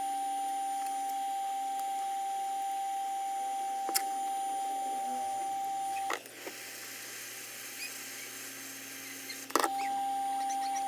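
A steady, high electronic whine from bench equipment, cut off with a click about six seconds in and switched back on with another click near the end, with a single sharp click about four seconds in.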